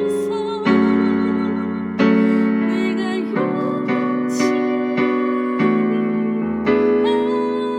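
Electronic keyboard playing a slow hymn with no singing. Full chords are struck about every one to two seconds and fade between strikes, under a melody with a wavering vibrato.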